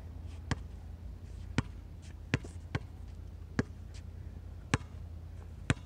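Basketball dribbled on a hard outdoor court: about seven sharp bounces, roughly one a second and unevenly spaced.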